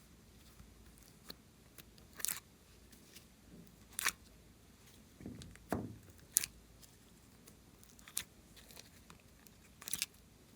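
Slime being squished and pulled by hand, giving a few short sticky clicks and crackling pops every couple of seconds, with one duller squelch a little past the middle.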